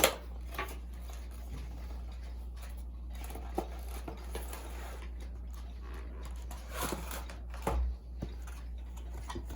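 Cardboard model-aircraft box being handled: scattered soft taps and rustles, a little busier about seven seconds in, over a steady low hum.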